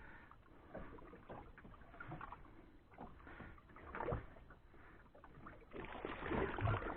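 Faint knocks and rustling of fishing gear being handled aboard a small boat while a tangled line is sorted out, getting busier and louder near the end.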